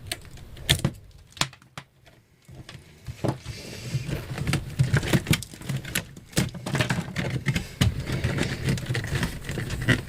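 Irregular knocks, clicks and scraping, as of wood and objects being handled, with a short quieter stretch about two seconds in and busier, denser handling after that.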